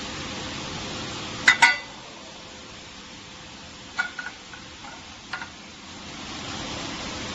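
Metal tin can being handled: two sharp clinks in quick succession about a second and a half in, then a few lighter taps and clicks about four and five seconds in, over a steady hiss.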